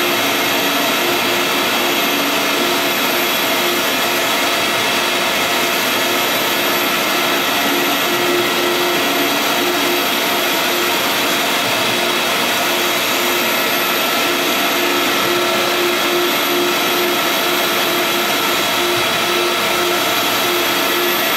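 Vutek UV-curable flatbed printer running while it prints on rigid sign board: a steady machine whir of fans and drives, with a low hum that keeps cutting in and out.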